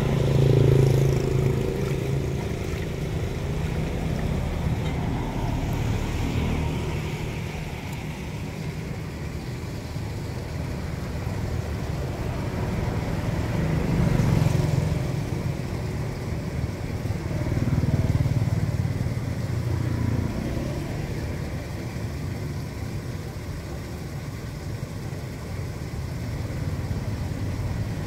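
Rainwater running down a street gutter and pouring through a curb drain grate, the drain cleared of trash and taking the flow, over a low rumble that swells a few times, about a second in and again near the middle.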